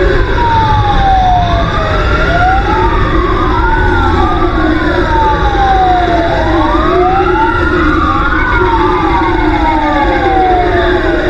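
Several emergency sirens wailing at once, each rising and falling slowly and out of step with the others, from the fire engine and its escort. A steady low rumble of engine and road noise runs underneath.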